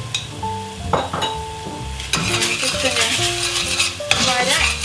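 Curry paste sizzling in hot coconut oil with minced shallots in a stainless steel pot as it is stirred in with a metal spatula; a few clinks of a spoon on a bowl come first, and the sizzle grows louder about two seconds in. Background music plays throughout.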